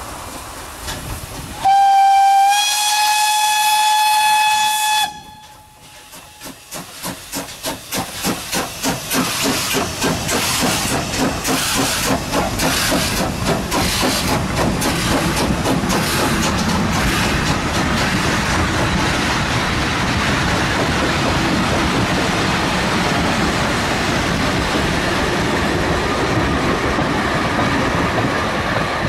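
DSB class F steam tank locomotive No. 441 gives one long whistle blast of about three seconds, which rises slightly in pitch just after it starts. Its exhaust beats then come in a steady rhythm, growing louder as it approaches and passes, followed by the steady running noise of its vintage carriages' wheels on the rails.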